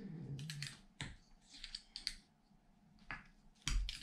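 Small metal parts clicking and scraping in the hands as a small ball bearing is worked off a bearing puller tool. There are a few scattered clicks and a louder knock near the end.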